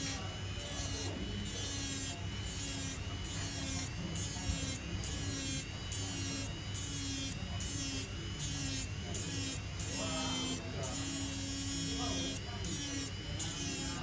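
Small electric grinding pen buzzing steadily as its spinning bit grinds the metal plate of an iPhone 7 Home button, with a regular pulse about twice a second.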